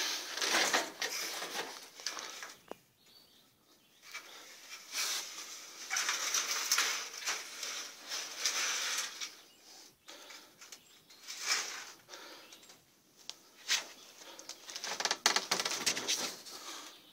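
Irregular bursts of rustling and scuffing from someone moving through a cluttered shed with a handheld camera, a few seconds apart with quiet gaps between.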